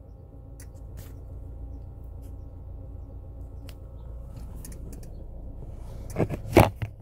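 Low, steady rumble of a car's engine and road noise heard from inside the cabin while driving, with a few light clicks and two loud thumps close together near the end.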